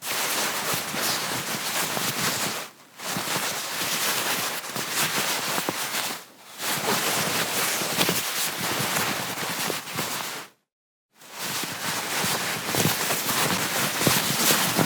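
Fabric rustling as cloth is handled and moved, in long continuous stretches with a few short breaks and a brief silence about two-thirds of the way through.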